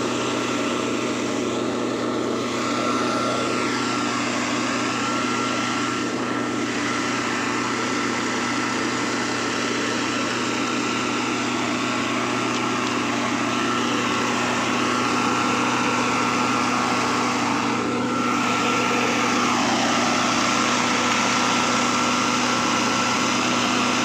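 A small engine running steadily at a constant pitch, with slight shifts in its sound now and then.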